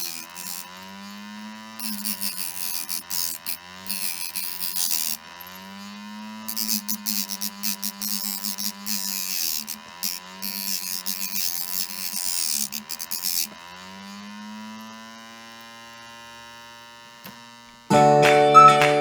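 Small DC motor of a homemade mini sander running with a steady hum. In several stretches its pitch sags under load, and a rasping sanding hiss comes in as the hook-and-loop sandpaper is pressed against the work. Near the end it runs free without the hiss, then stops.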